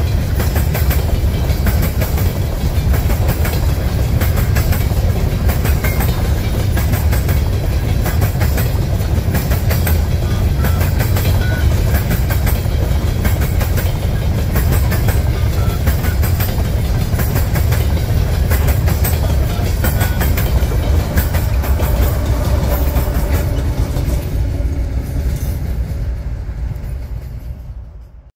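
Empty potash covered hopper cars of a freight train rolling by, steel wheels clicking over rail joints above a heavy low rumble. The sound fades away over the last few seconds as the end of the train passes.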